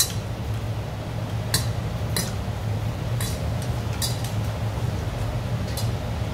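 Metal chopsticks clinking against stainless steel bowls, about half a dozen separate clinks, over a steady low hum.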